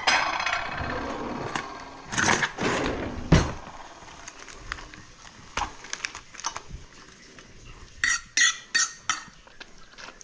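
Dishes and cutlery clattering as a plate is handled, with a few knocks in the first few seconds and a quick run of sharp clicks near the end.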